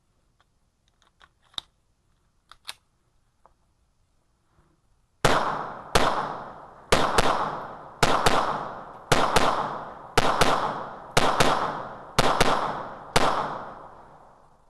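A few faint handling clicks, then about fifteen 9mm shots from a Beretta 92FS-pattern pistol, fired in quick pairs roughly a second apart, each shot ringing out briefly.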